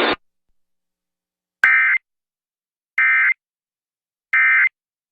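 Three short bursts of Emergency Alert System digital data, a harsh buzzing warble each lasting about a third of a second, spaced about a second apart: the end-of-message code that closes the tornado warning broadcast.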